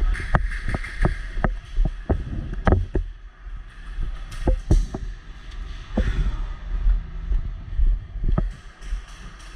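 Airsoft guns firing irregular single shots: sharp pops and cracks, a dozen or so in quick clusters. A low rumble of wind and handling noise on the microphone runs underneath.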